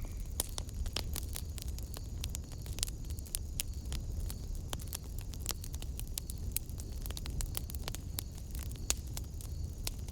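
Wood fire burning in a fireplace, crackling and popping with many small irregular snaps over a steady low rumble of the flames.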